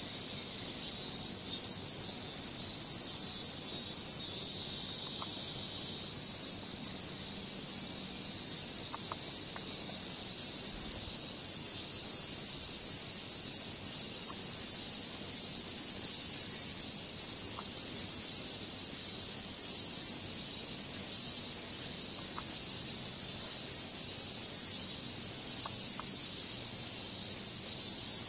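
A steady, high-pitched chorus of summer cicadas.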